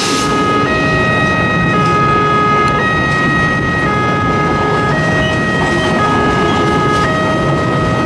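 Level-crossing warning alarm sounding an electronic two-tone pattern that switches pitch about once a second over one held tone, above the steady rumble of passenger coaches rolling past.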